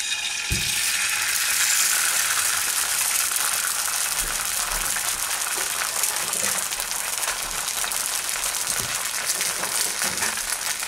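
Egg frying in hot oil in a nonstick pan: a steady sizzle with fine crackling. A single soft knock about half a second in.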